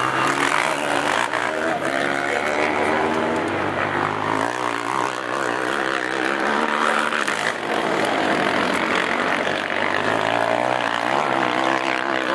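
Racing quad (ATV) engines revving on a motocross track, several overlapping and rising and falling in pitch as the riders throttle on and off over the jumps.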